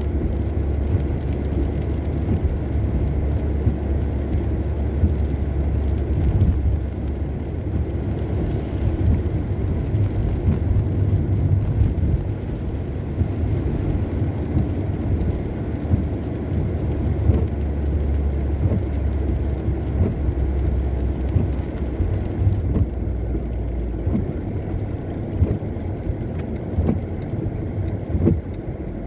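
A car driving in the rain: a steady low rumble of engine and road noise with a hiss above it, the hiss easing about three-quarters of the way through, and a few light ticks near the end.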